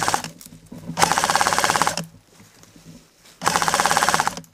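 Airsoft electric gun firing full-auto bursts of rapid, evenly spaced shots, close by. A burst cuts off just as the sound begins, another runs about a second starting a second in, and a shorter one comes near the end.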